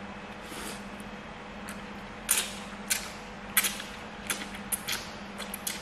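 Instant noodles being slurped in a series of short, quick sucks, about eight of them, the loudest between two and four seconds in.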